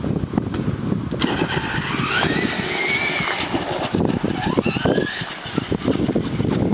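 Remote-control truck's motor revving: a whine rises, holds and drops, then rises again more briefly, over a steady low rumble.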